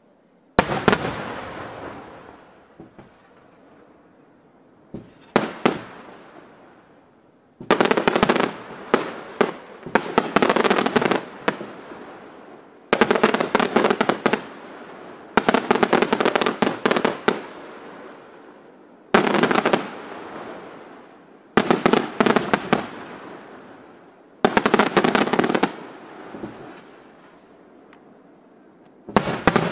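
Aerial firework shells bursting in salvos: about ten clusters of sharp bangs, each cluster a few seconds apart and followed by a rumbling echo that fades away.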